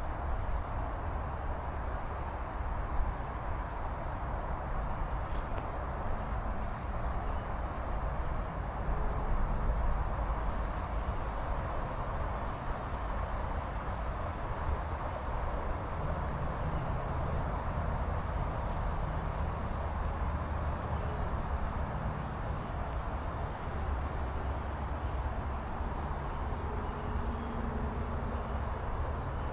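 Wind buffeting the microphone of a DJI Osmo Action 5 Pro, a steady low rumble with a rushing hiss over it.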